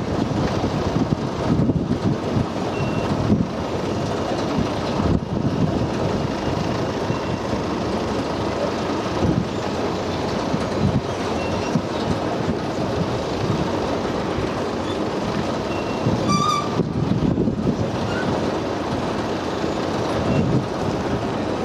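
Two station escalators running, a steady mechanical rumble and rattle that swells and eases unevenly. A brief beep sounds about sixteen seconds in.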